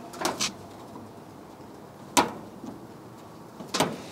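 Sharp clicks from a gas grill's burner control knobs being turned to light the burners: two close together about a third of a second in, one near the middle, and two more close together near the end.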